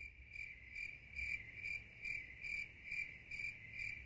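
A cricket chirping steadily, short high-pitched chirps repeating about two and a half times a second.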